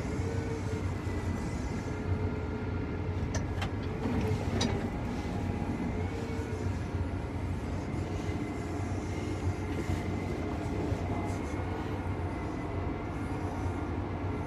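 John Deere 8RX 410 tracked tractor's engine and drivetrain running steadily at low speed, heard from inside the cab as a low, even drone with a faint steady whine above it. A couple of light clicks come about three and four and a half seconds in.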